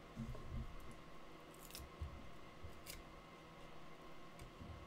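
Faint rustle and slide of glossy baseball trading cards being flicked through by hand, one card at a time, with two sharp little flicks about two and three seconds in.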